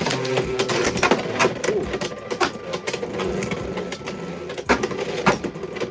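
Two Beyblade X tops spinning in the plastic stadium, clattering against each other and the stadium wall in rapid irregular clicks over a steady whir.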